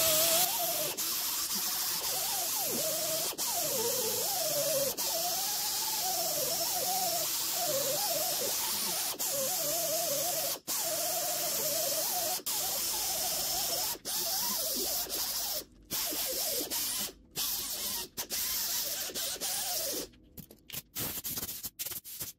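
Air-powered die grinder with a small abrasive disc grinding a MIG weld on thin-wall steel square tubing, cleaning up the joint. Its whine rises and falls in pitch as it is pressed into the metal and eased off. Near the end it runs in a few short on-off bursts, then stops, followed by a few light clicks.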